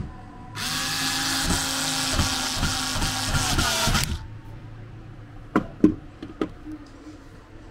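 Power drill running for about three and a half seconds with a steady whine, probably driving a screw during furniture assembly. The whine drops slightly in pitch as it stops. Three sharp knocks follow about a second later.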